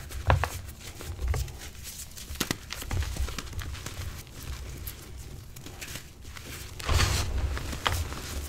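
Hands crumbling and squeezing soft reformed gym chalk mixed with instant snow: fine crackles and soft crunches as the chunks break apart, with a louder crushing stretch about seven seconds in.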